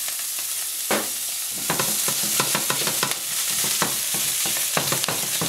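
Brussels sprout leaves sizzling in a hot stainless steel frying pan with oil and butter. A metal spoon clinks and scrapes against the pan as the leaves are stirred and the pan is shaken, with many sharp clicks from about a second in.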